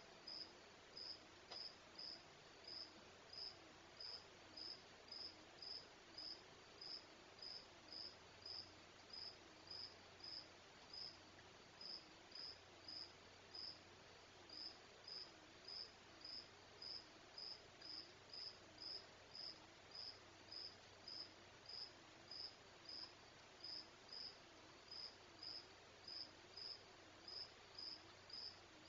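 A cricket chirping steadily and faintly, about two short high chirps a second, over a faint wavering low hum.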